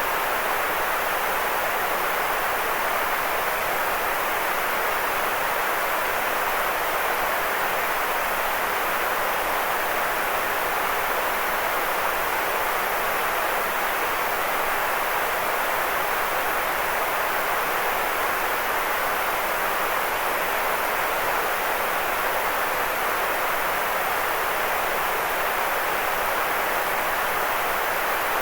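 Generated white noise: a constant, even hiss that never changes or breaks, with most of its weight in the middle pitches.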